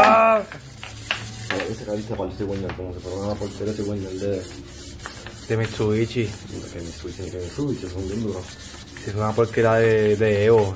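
400-grit sandpaper strip being pulled back and forth around a Subaru EJ crankshaft journal, rasping in repeated strokes with a wavering squeal on many of them. It is the DIY shoeshine-style polishing of a journal scored by a failed bearing.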